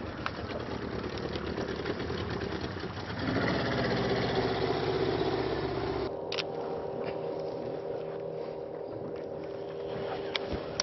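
Boat motor running, getting louder from about three seconds in, then dropping abruptly about six seconds in to a quieter, steady hum.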